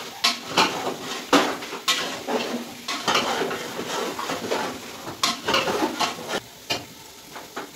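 A metal ladle stirring and scraping mutton as it browns in hot oil in a pan, with irregular knocks and scrapes against the pan over a steady sizzle. The stirring strokes thin out near the end.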